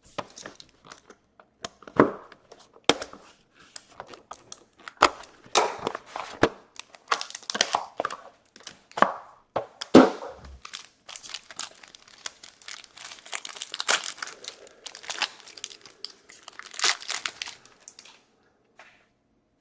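Plastic wrapping and packaging on a box of trading cards being torn open and crumpled by hand: a long run of crinkling, tearing and sharp clicks that dies away near the end.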